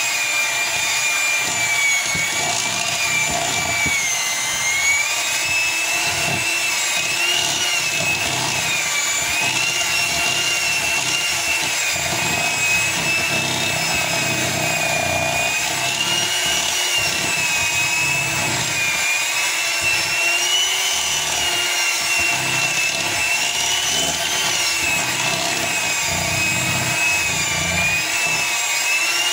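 Handheld electric mixer running continuously, its beaters working through a thick cream cheese and marshmallow fluff filling. A steady motor whine whose pitch wavers slightly up and down as the load on the beaters changes.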